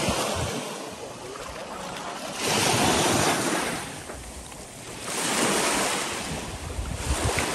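Small lake waves washing in on a sandy shore, the surf hiss swelling and fading three times. Wind buffets the microphone with low rumbling gusts near the end.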